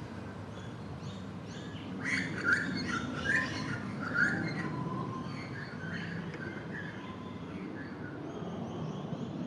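Birds chirping in the background over a steady low hum, with a busy run of short chirps from about two to four and a half seconds in.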